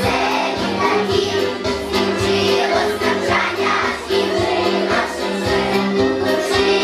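A choir singing a song over instrumental backing with a steady beat.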